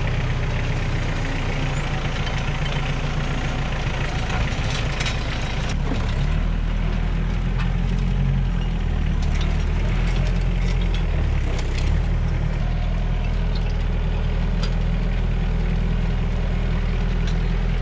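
Compact tractor engine running steadily under load while it drags a single-shank ripper through hard, dry soil, its drone settling lower about six seconds in. Scattered clicks and knocks of breaking ground and stones over the top.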